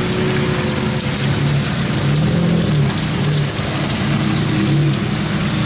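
Heavy rain pouring down, mixed with the low, steady note of a Ferrari Enzo's V12 as it rolls slowly past on the wet tarmac. Its engine note rises and dips briefly about two seconds in.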